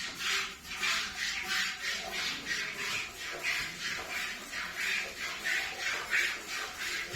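A Murrah buffalo being milked: jets of milk hiss into a pail in a steady rhythm, about two squirts a second.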